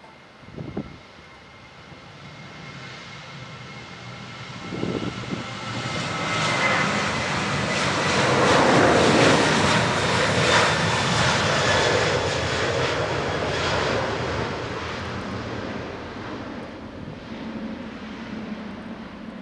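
Boeing 737-800's twin CFM56-7B turbofan engines at takeoff power as the jet accelerates down the runway. A high fan whine comes first, then the sound builds to its loudest as the aircraft passes, about ten seconds in, and fades as it heads away and lifts off.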